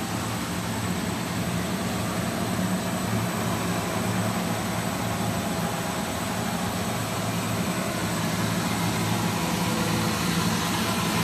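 Brush sanding machine running: its motors and spinning bristle sanding brushes make a steady hum with an even hiss over it.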